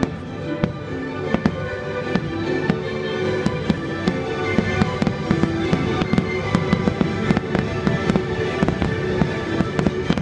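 Fireworks bursting in a rapid string of bangs and crackles, thickening in the second half, over show music with long held notes.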